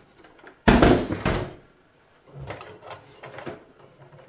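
Desktop PC tower case tipped over and laid down on its side: a sudden loud clatter about a second in, followed by lighter handling and knocking noises.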